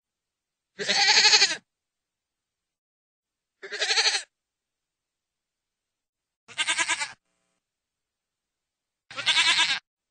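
Goat bleating: four separate quavering bleats, each under a second long, spaced about two and a half seconds apart, with dead silence between them.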